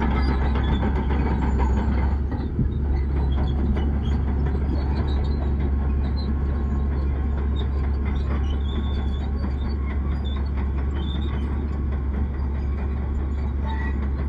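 Bulldozer at work: its diesel engine runs with a steady low rumble over a fast metallic clatter from the crawler tracks, which eases slightly about two seconds in.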